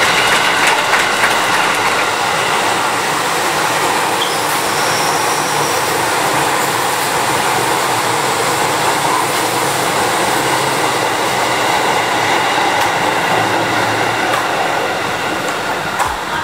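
KRL electric commuter train passing close at speed: a steady loud rush of steel wheels on rail, with faint steady high tones running through it.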